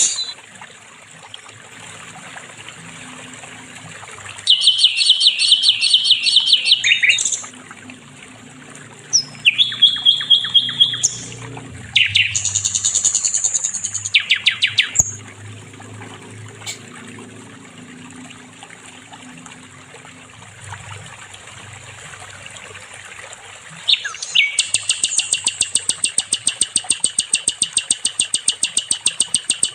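Sikatan londo singing in bouts of rapidly repeated high notes, several seconds each with pauses between them; the longest series begins about 24 seconds in. A faint low hum fills the gaps between the bouts.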